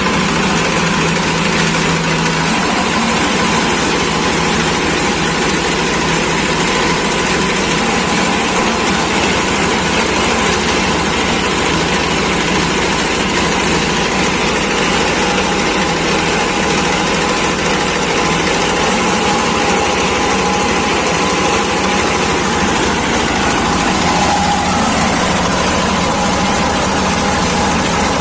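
Leaf and twig shredder (compost chopper) machine running steadily, its engine and cutter making a loud, even mechanical noise.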